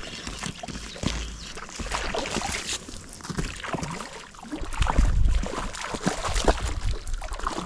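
Gusty wind buffeting the microphone, strongest about five seconds in, with water sloshing and splashing close by.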